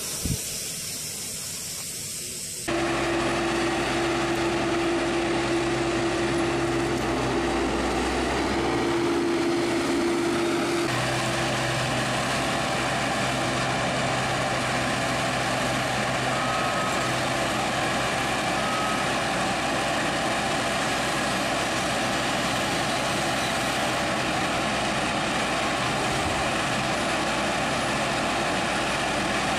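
Steam hissing briefly from an overturned truck, then after a cut the diesel engine of a sugarcane grab loader running steadily, with a steady whine over it for several seconds after the cut.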